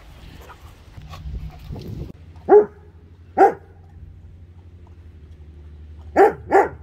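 A dog barking: four short barks, two about a second apart in the middle, then a quick pair near the end.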